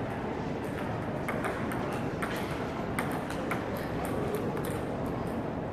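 Table tennis balls clicking off paddles and tables in irregular, sharp ticks, from more than one rally, over a steady background noise of a large hall.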